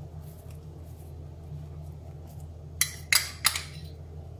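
A spoon scraping and clinking against a dish while pizza sauce is spread on dough, with three or four sharp clinks close together about three seconds in, over a steady low hum.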